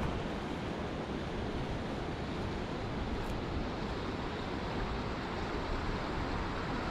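Steady wind rushing, with a low rumble of wind buffeting the microphone.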